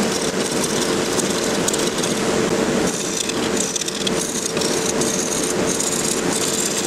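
Wood lathe running with a steady motor hum while a turning tool cuts into a pecan blank that is still out of round, a rough, uneven cutting noise that swells and eases as the tool works.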